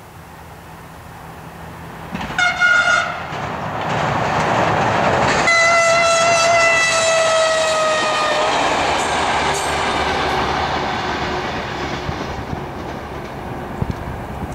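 AEG/LEW diesel multiple unit sounding its horn as it approaches: a short blast, then a longer one that drops in pitch as the train passes, followed by the rumble and clickety-clack of the cars running by on the rails.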